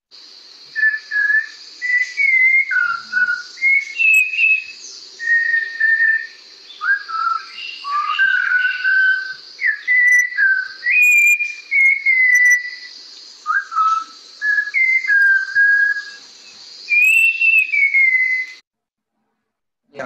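Malabar whistling thrush singing, played as a recording: a long rambling run of clear, melodious whistled phrases that glide up and down in pitch, over a steady hiss. It stops about a second and a half before the end.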